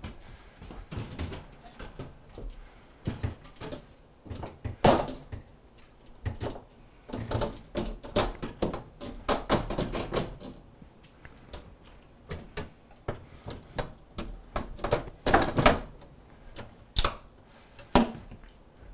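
Refrigerator shelves being slid into their tracks and set in place inside a fridge compartment: scattered clicks, knocks and clattering scrapes, coming in several bunches, with single sharp knocks near the end.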